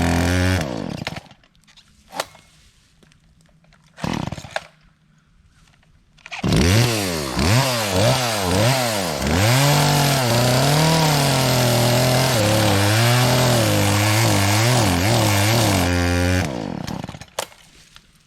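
Chainsaw running, dying away about a second in; after a short burst near four seconds it runs again from about six seconds, revving up and down repeatedly, then holds a steadier pitch with small wavers before stopping about sixteen seconds in.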